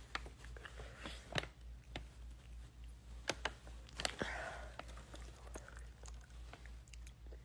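Faint close-up mouth sounds of someone chewing syrup-filled wax candy: scattered small wet clicks and smacks, a little busier about four seconds in, over a steady low hum.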